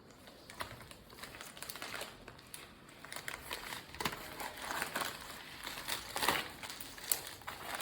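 Plastic packaging wrap crinkling and crackling in irregular bursts as it is cut open and pulled apart by hand, busier and louder in the second half.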